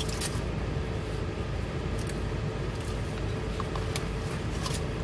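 Steady low rumble and hum of a car running, heard inside the cabin, with a few faint clicks.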